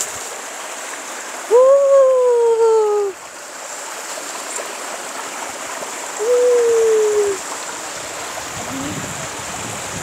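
Mountain stream running over rocks, a steady rush of water. Over it, two long drawn-out calls, each one tone that sags slightly in pitch: the first about a second and a half in, lasting about a second and a half, the second about six seconds in, lasting about a second.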